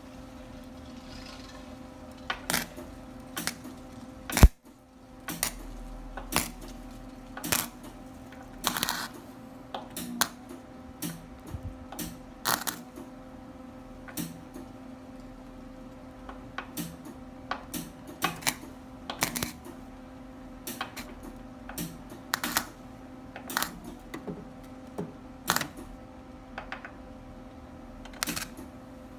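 Welder without shielding gas tacking sheet metal: irregular short crackles and sharp pops, one to three a second, over a steady electrical hum, with one much louder sharp crack about four and a half seconds in.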